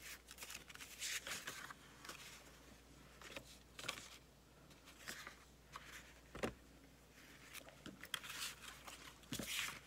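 Faint rustling and sliding of sheets of paper and cardstock being handled and shuffled on a desk, with a light knock about six and a half seconds in.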